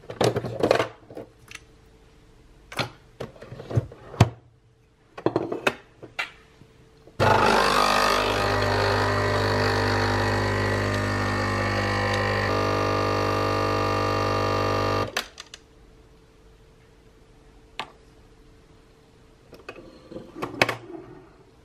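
A capsule espresso machine's pump buzzing steadily for about eight seconds while coffee runs into the glass, its tone shifting slightly partway through, then cutting off. Before it, a run of clicks and knocks as the lever is closed and the machine handled; near the end, a few knocks as the glass is picked up.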